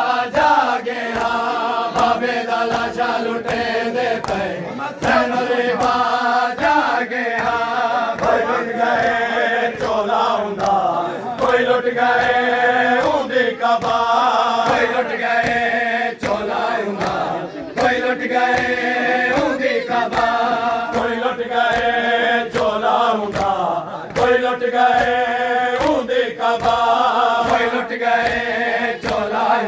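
Group of men chanting a noha, a Shia mourning lament, in unison, in long held phrases that repeat every few seconds. Under it runs a steady rhythm of hands slapping bare chests in matam.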